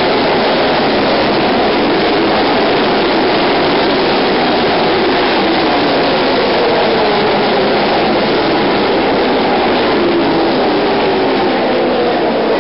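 A pack of ARCA stock cars' V8 engines at racing speed, a loud steady roar of several engines at once, their notes overlapping and sliding up and down in pitch as the cars pass and run on around the track.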